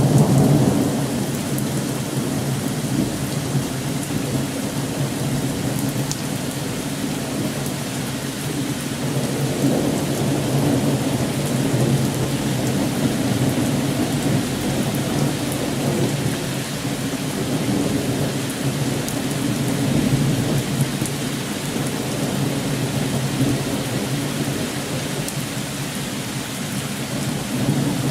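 Thunderstorm with heavy rain pouring down steadily and rolling thunder rumbling throughout, swelling and fading every several seconds, the loudest rumble right at the start.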